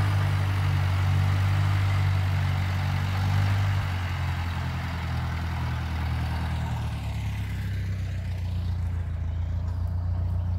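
Farm tractor engine running steadily as the tractor drives along, a little quieter after about four seconds.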